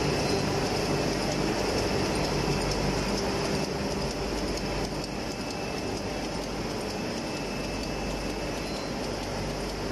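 Sanitary pad making machine running: a steady mechanical clatter over a hum, a little quieter from about halfway through.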